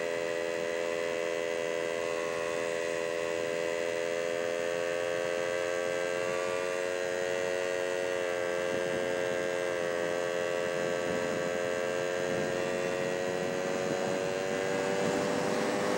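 Vehicle engine running at a steady cruise, a hum of several stacked tones that climbs slightly in pitch near the end, over road and wind noise that grows louder.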